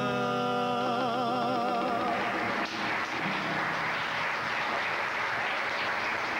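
The last chord of a bolero on guitar and tres cubano, with two male voices holding the final sung note with vibrato. After about two and a half seconds the note fades and studio-audience applause takes over.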